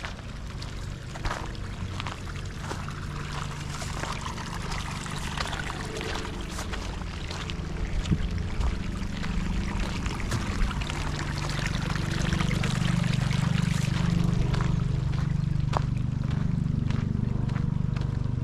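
A steady low engine drone that grows louder about two-thirds of the way through, over a rushing, splashing water-like noise with scattered small clicks.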